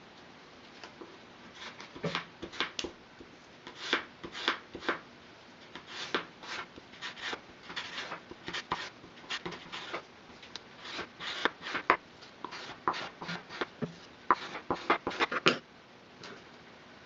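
A plastic scraper pressed and rubbed along a split barley straw on a wooden cutting board to flatten it: short, irregular scrapes, several a second, stopping about a second and a half before the end.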